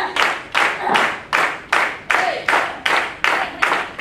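Small audience clapping in unison at a steady beat, about three claps a second.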